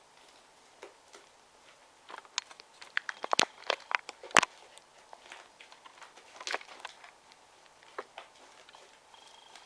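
Fluffy slime being kneaded and stretched by hand, giving off irregular sharp crackles and pops as air pockets burst. The pops bunch up in the middle, the loudest about four and a half seconds in, with a few more scattered later.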